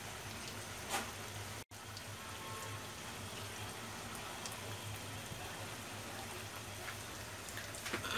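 Hilsa steaks frying in mustard-paste masala in a pan: a steady sizzling and bubbling with light crackles. It cuts out for an instant about one and a half seconds in.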